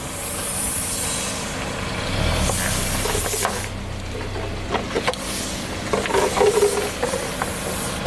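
Car running and its tire rolling slowly, with scattered crackles and pops from about three seconds in as the tire crushes objects under it.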